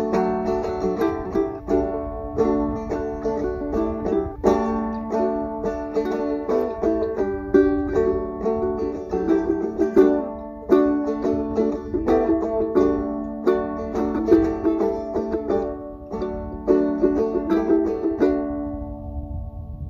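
Ukulele and a second long-necked plucked string instrument played together in a strummed, rhythmic tune. The song ends about two-thirds of a second before the close, its last chord ringing out and fading.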